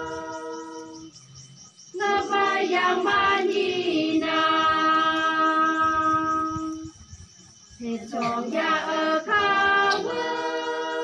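Group of women singing a traditional song in unison, holding long steady notes. There are three phrases, with brief pauses between them about a second and a half in and around seven seconds in.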